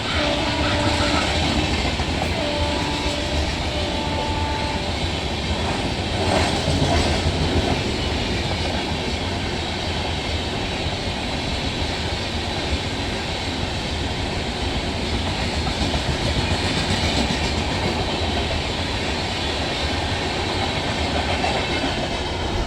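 Train running along the track with a steady rumble and rattle of its wheels and wagons. In the first few seconds its horn sounds in several short blasts.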